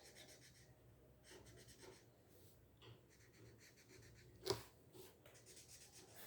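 Faint scratching of a felt-tip marker being stroked across paper while coloring, with one short sharp tap about four and a half seconds in.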